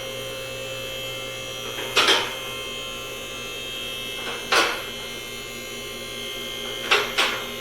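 Floor jack being pumped to raise the truck, with a sharp clack at each stroke, four in all, over a steady electric hum.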